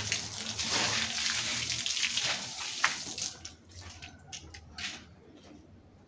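Water being poured out and splashing onto the ground, a steady rush for about three seconds that then thins into a few separate splashes and dies away.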